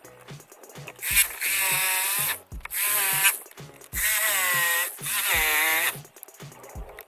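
Corded jigsaw cutting a round hole through a wooden board, running in four bursts with short stops between them, its whine wavering in pitch under load. A low beat of background music runs underneath.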